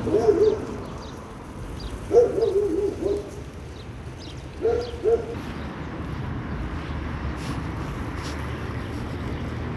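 An animal's low, wavering call, given three times about two seconds apart. The middle call breaks into several short notes. A steady low background rumble runs underneath.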